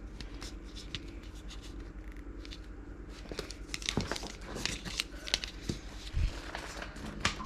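Small plastic miniature parts being handled and pushed together: scattered light clicks, taps and rustles, busier in the second half, with a dull bump about six seconds in, as a tiny leg is worked into its socket.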